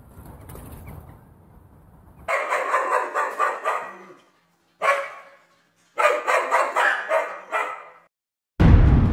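A dog barking in quick runs of barks, three bouts cut apart by sudden dead silences, after a faint low rumble at the start. A loud low rumble cuts in near the end.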